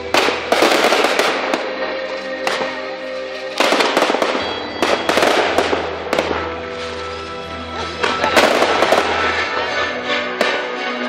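Fireworks bursting and crackling in repeated volleys over music, with loud salvos at the start, a few seconds in and again about three-quarters of the way through.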